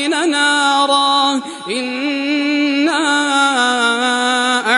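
A male reciter chanting the Quran in melodic tajweed style, holding long drawn-out notes on a steady pitch with brief ornamented turns between them.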